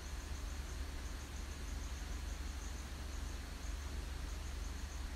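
Faint night forest ambience: an insect chirps in a high-pitched, steady rhythm several times a second over a low, steady rumble.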